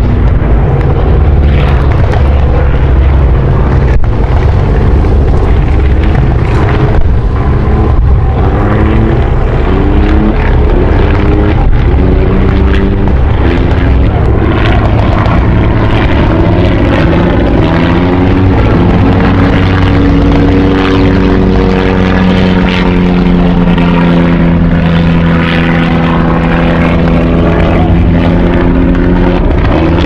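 Battle reenactment ambience dominated by propeller-driven warplane engines droning overhead. The engine notes shift up and down in pitch as the planes pass, over a heavy low rumble with scattered sharp cracks.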